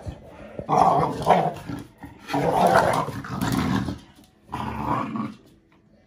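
Young American Bully puppy growling in three bouts while tugging a toy with an older dog: play growling.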